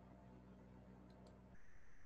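Near silence: a faint steady electrical hum of room tone, with a couple of faint ticks about a second in.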